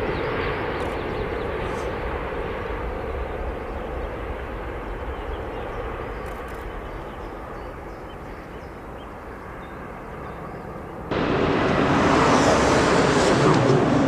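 Airbus A380 jet engine noise that slowly fades. About eleven seconds in it switches suddenly to much louder jet engine noise.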